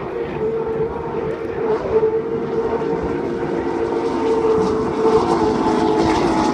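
Steady drone of distant engines with a held, pitched hum, growing gradually louder toward the end.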